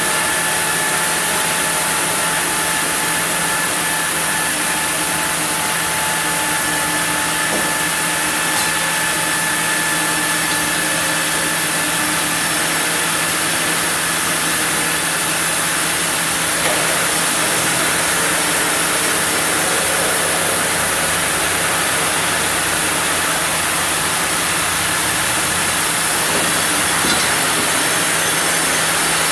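Sawmill saw running steadily while it cuts through a block of zelkova hardwood, a loud continuous hissing rasp with a steady machine hum underneath.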